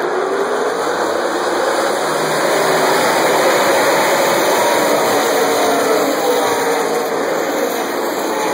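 A pack of NASCAR Cup stock cars running past at speed, their V8 engines blending into one loud, continuous drone. The pitch slides up and down as the cars go by, and the sound is loudest about three to four seconds in.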